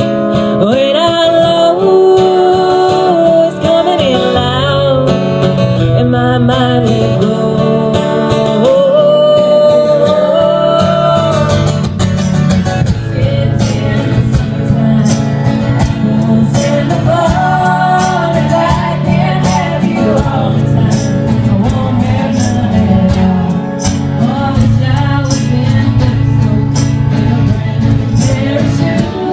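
Live country song: women singing a melody over strummed acoustic guitar. About twelve seconds in, a steady percussive beat joins the band.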